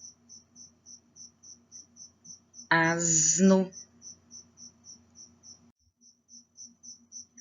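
Cricket chirping in a steady rhythm, about four high-pitched chirps a second.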